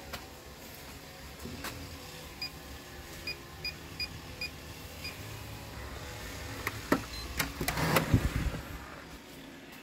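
Electronic keypad deadbolt being worked: five short beeps as the code is keyed in. A few seconds later comes a short higher beep, then clunking and mechanical noise as the lock releases and the lever handle and latch are worked.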